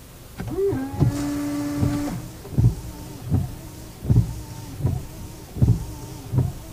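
Lynk & Co 03's windscreen wipers switched on: a short steady motor whine for about a second and a half, then the wiper blades sweeping back and forth with a thump at each stroke, about one every three-quarters of a second.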